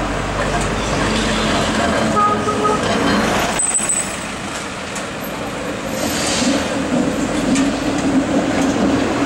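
Street traffic: a Mitsubishi box truck drives past close by, with a brief high squeal just before four seconds in. A PCC streetcar then runs past close on its tracks, with a steady low hum in the last few seconds.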